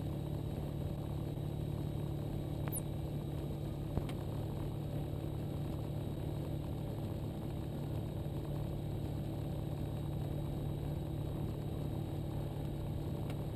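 Ikarus C42 microlight's engine idling steadily after taxiing in, heard through the headset intercom feed, with a single short click about four seconds in.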